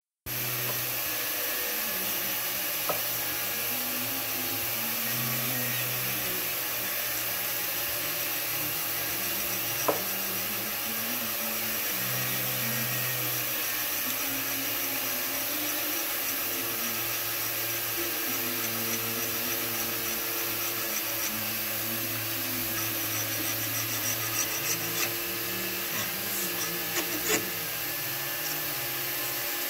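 A small power tool running steadily, its pitch shifting as it works, with a few sharp clicks.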